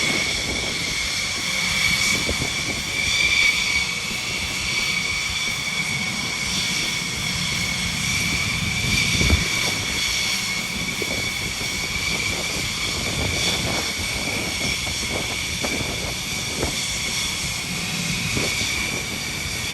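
Jet engine of a Thunderbirds F-16 running with a steady, high-pitched turbine whine over a low rumble, the pitch holding level throughout.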